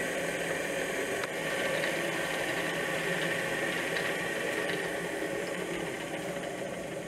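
Magnetic stirrer hot plate running, a steady motor hum with a faint whine, and a small click about a second in.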